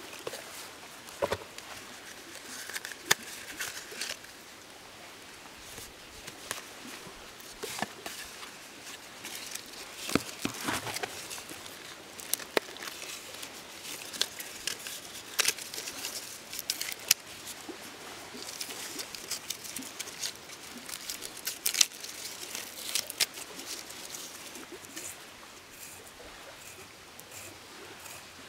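Hands handling a leather pouch and dry tinder and sticks at a fire lay: irregular rustling with scattered small crackles and clicks.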